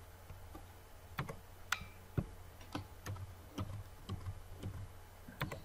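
Irregular light clicks at a computer, a dozen or more spaced unevenly, over a low steady hum.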